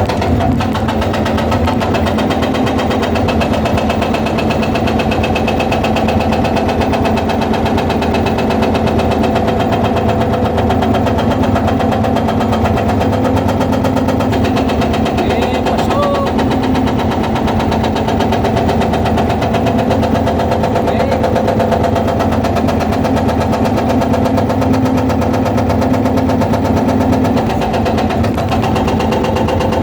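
Excavator-mounted hydraulic breaker hammering stone in rapid, steady repeated blows over the excavator's running engine.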